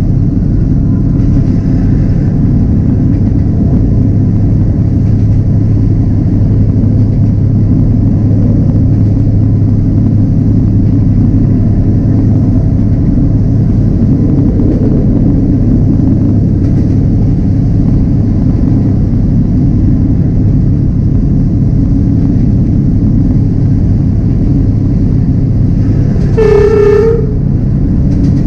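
Diesel locomotive running steadily along the track with a loud low drone and rumble. Near the end the horn gives one blast of about a second.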